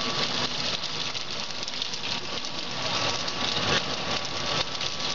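Corn snack extruder running, a steady mechanical noise with faint ticking while the extruded corn pieces drop out of it.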